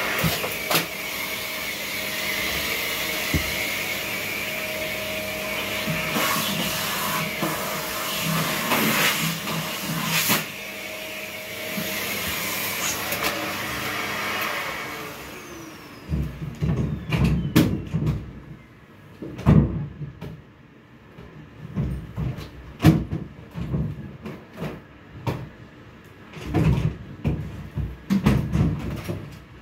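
Upright or canister vacuum cleaner running steadily with a whine. About halfway through it is switched off and its motor winds down with falling pitch. Then come irregular knocks and thumps as things are handled.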